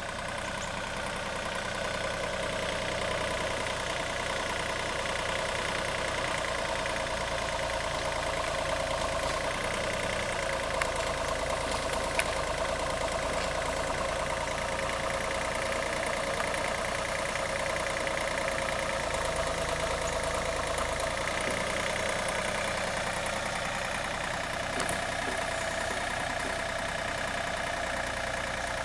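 Takeuchi mini excavator's diesel engine running steadily while the operator works the boom and bucket.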